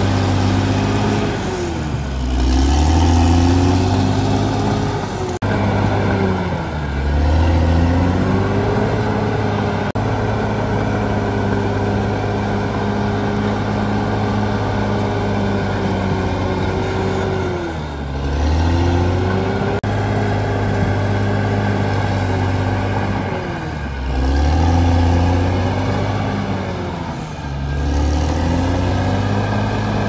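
Caterpillar D6R XL crawler bulldozer's diesel engine running hard while the machine pushes soil with its blade. Its pitch dips and recovers about five times.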